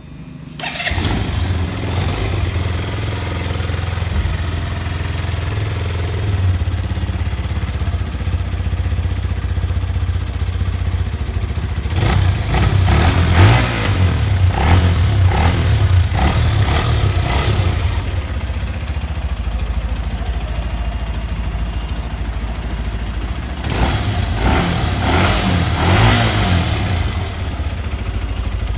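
Benelli TNT 150i's single-cylinder, liquid-cooled, fuel-injected four-stroke engine starting about a second in, idling, then being revved twice, in the middle and near the end.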